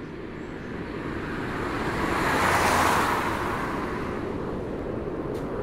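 Whoosh sound effect for an animated logo reveal: a rush of noise like wind that swells to a peak about halfway through and then eases off, over a low rumble, with a couple of faint ticks near the end.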